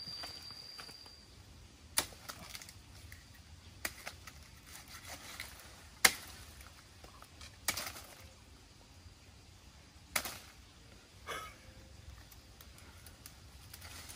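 Six sharp knocks or snaps at irregular intervals, a second or two apart, the loudest about six seconds in.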